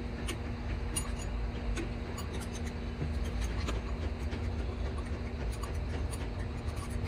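Scattered light clicks and taps, irregular and a few each second, over a steady low rumble and hum.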